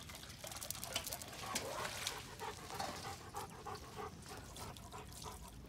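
A dog panting in quick, even breaths, with scattered light clicks.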